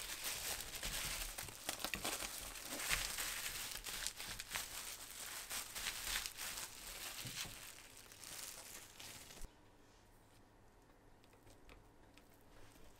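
Thin disposable plastic gloves crinkling and a bamboo sushi rolling mat rustling as hands roll and press a sushi roll, with many small crackles and clicks. The sound drops suddenly to faint handling noise about nine and a half seconds in.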